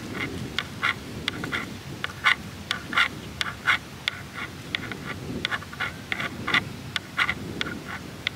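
Watercolour brush working on paper and palette: irregular short taps and scratchy strokes, about two or three a second, over a low steady background rumble.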